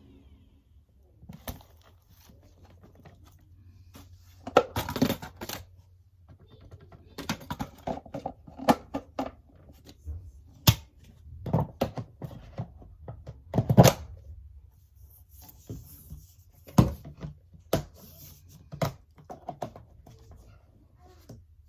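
Scattered knocks, thunks and rustling of objects being handled, with the vacuum cleaner switched off. The loudest knocks come about five, eleven and fourteen seconds in.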